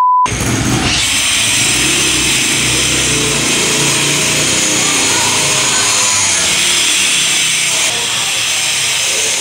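A short, steady one-kilohertz bleep tone, then a loud, steady machine noise.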